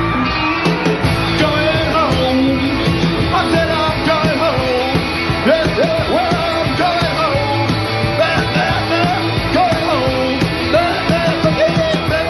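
Live psychobilly band playing loudly: pounding drums and twangy electric guitars, with a man's voice singing and yelping over them.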